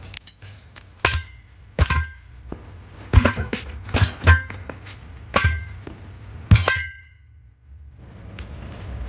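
Steel wheel rim clanging under about seven separate knocks while a tire is worked onto it by hand. Several knocks leave a short metallic ring.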